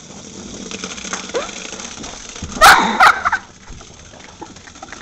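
Two short, loud, high-pitched cries about half a second apart, a little under three seconds in.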